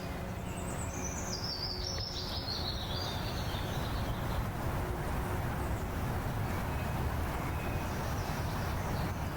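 A songbird singing a run of high notes that step down in pitch over about two and a half seconds, followed later by a few fainter short chirps, over a steady low outdoor background noise.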